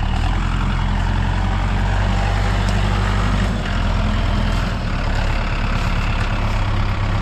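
Large engine of heavy equipment running steadily, its pitch shifting slightly a few times as it works.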